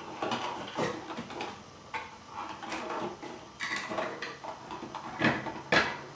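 White plastic keyless lamp holder being handled against a ceiling outlet box, with the wires pushed up into the box: irregular scrapes, rustles and plastic clicks, two sharper knocks near the end.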